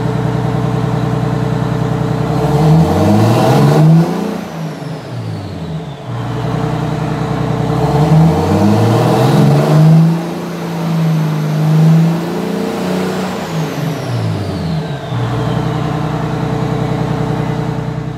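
A bus's Detroit Diesel engine idling, then revved twice and let fall back to idle. The first rev rises and drops within a few seconds; the second is held high for several seconds before falling back. A faint high whine falls in pitch as the revs drop.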